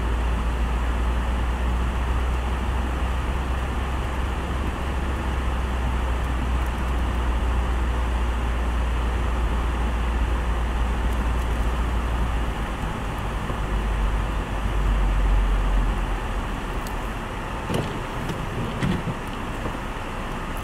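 A car driving on a wet road, heard from inside the cabin: steady tyre and road noise over a deep, low rumble. A few faint clicks come near the end.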